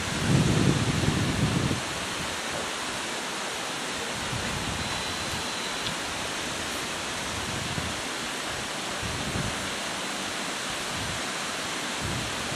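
Steady, even hiss of open-air noise, with a brief low rumble lasting just over a second near the start.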